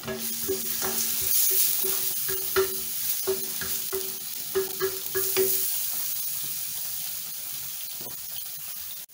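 Ginger-garlic paste sizzling in a little hot oil in a nonstick frying pan. A wooden spatula stirs it with repeated light scrapes and taps on the pan for the first five seconds or so, then the sizzling goes on alone and slowly fades.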